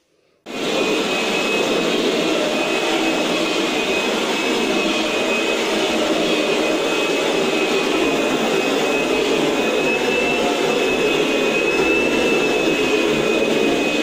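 Kirby upright vacuum cleaner running with its carpet shampooer attachment, scrubbing foam into a carpet. It starts suddenly about half a second in, then runs loud and steady, with a high, thin motor whine over the airflow noise.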